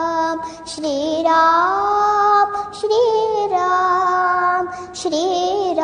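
A child singing a Marathi devotional bhajan to Lord Ram, drawing out long held notes that slide up and down with short breaks between phrases, over musical accompaniment.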